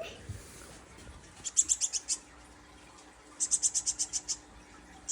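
Baby bird's begging calls: two runs of rapid, high-pitched chirps, the first about one and a half seconds in and a longer one past the middle, about ten chirps a second. These are the calls of a hungry nestling being hand-fed.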